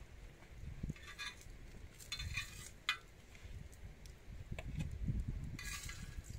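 Metal utensil scraping and clinking against a steel griddle as roasted eggplants are lifted off it, in three short scrapes, the last near the end, with a low rumble underneath.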